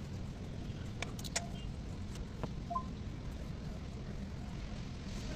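GMC Yukon engine idling with a steady low rumble, a few light clicks about a second in; with the belt tensioner replaced, no tensioner noise stands out.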